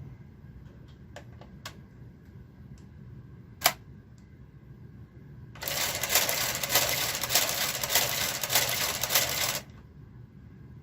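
Home knitting machine: a few clicks, then a carriage running across the needle bed in a rattling clatter of fine rapid ticks for about four seconds.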